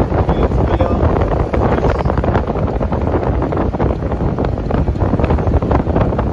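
Loud wind buffeting the microphone: a steady low rumble broken by constant short gusts.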